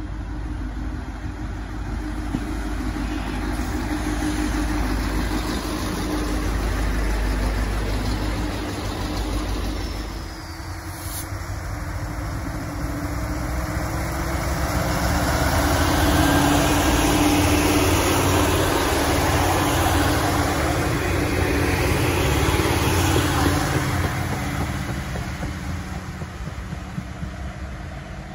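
Two coupled Sprinter diesel railcars at the platform, their engines running steadily. A sharp click comes about eleven seconds in. About halfway through the engine noise swells as the railcars pull away under power, then fades toward the end.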